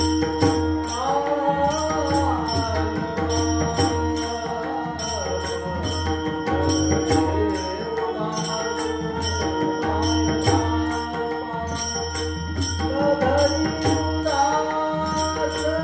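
Devotional song: a voice singing a melody over a steady held drone, with jingling percussion and a low drum keeping an even beat.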